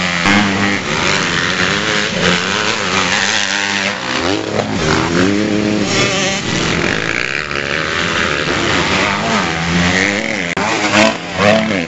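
Youth motocross bikes racing on a dirt track, their engines revving with the pitch rising and falling again and again as riders open and close the throttle.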